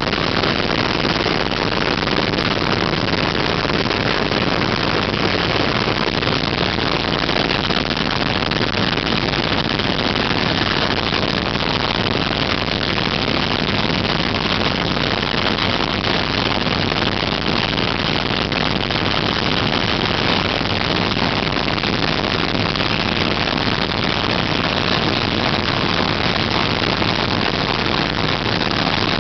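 Vehicle engine running steadily at idle, giving off an even, unchanging noise that the owner calls a bad sound.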